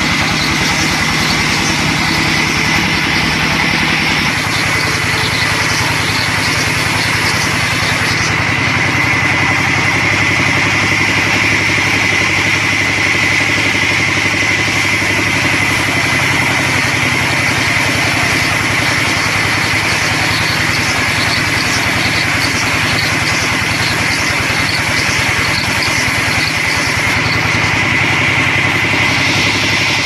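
Sawmill band saw running steadily with a high whine as it rips a log into planks, while its drive hums underneath; the lower hum changes about four seconds in.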